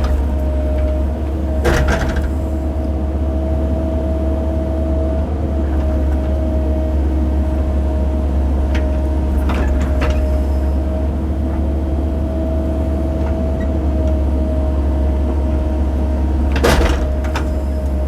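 Cat 308 mini excavator's diesel engine running steadily under digging load, with a steady hydraulic whine over it. Three sharp clanks, about 2, 10 and 17 seconds in, stand out above the engine.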